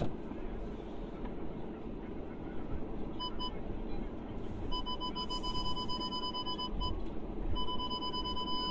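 Inside a car crawling over a rough dirt track: low engine and tyre rumble, with an electronic warning beep from the car. Two short beeps come about three seconds in, then a long steady tone that breaks off briefly near seven seconds and resumes.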